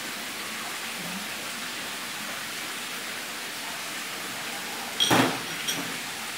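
Steady background hiss; about five seconds in, a short clatter with a brief metallic ring, then a smaller click just after.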